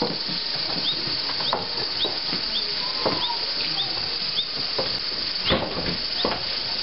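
Capybaras giving short, irregular clicking and squeaking calls, with a few brief higher squeals among them. Faint short high chirps repeat about twice a second underneath.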